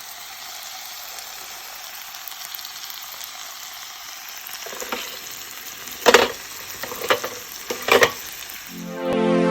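Food sizzling on a hot tabletop grill, a steady frying hiss with a few short, louder bursts in the second half.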